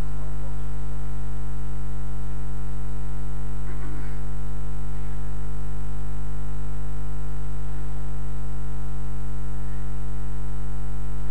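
Loud, steady electrical mains hum with a stack of overtones, carried through the microphone and sound system.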